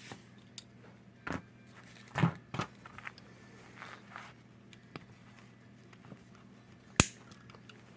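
Scattered small clicks and taps of a diecast toy car and small tools being handled while its wheels are taken off, with one sharp click about seven seconds in, over a faint steady hum.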